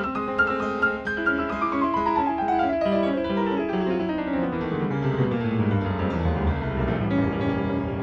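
Piano accompaniment music. About a second in, a long run of notes descends steadily from high to low over some six seconds, then the playing resumes lower down.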